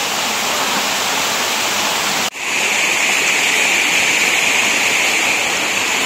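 Waterfall rushing: a steady, loud wash of falling water. It cuts out for an instant about two seconds in, then comes back brighter and hissier.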